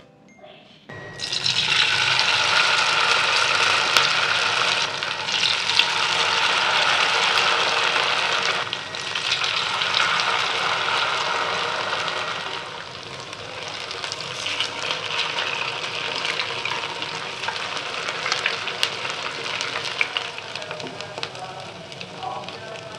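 Bakwan sayur (cabbage-and-carrot fritter batter) deep-frying in hot oil in a pan: a loud sizzle full of crackles and pops that starts suddenly about a second in and eases somewhat about halfway through.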